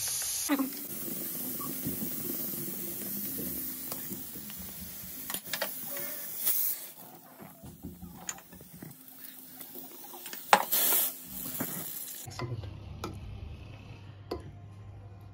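Gas stove burner running with a steady hiss and low hum while a whole dried red chilli is charred directly over the flame. After that come scattered knocks and scrapes of steel kitchenware, the loudest a sharp knock about ten and a half seconds in, and a steel ladle stirring in a pot of boiled dal near the end.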